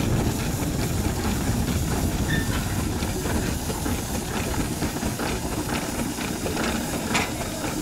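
Vintage steam traction engine running as it tows loaded wooden wagons, a steady hiss of steam over the noise of the working engine, easing off slightly as it moves past.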